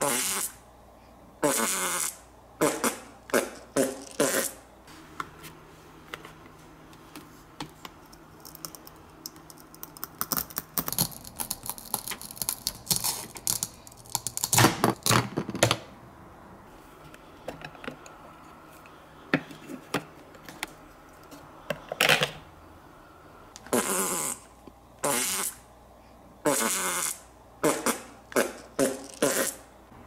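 Cartoon fart sound effects: a string of short, loud blasts in the first few seconds and another run in the last several seconds, with dense clicking of plastic toy food and a toy knife being handled in between.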